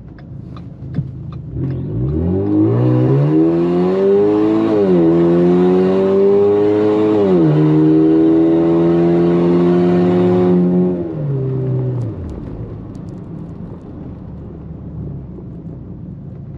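Ford Fusion with an aftermarket downpipe accelerating hard. The engine note climbs, drops at two upshifts a couple of seconds apart, holds steady, then falls away as the throttle is lifted.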